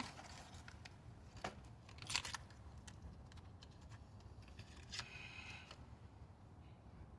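A few faint, sharp clicks and a short rustle: small metal and plastic parts being handled during a spark plug and ignition coil change.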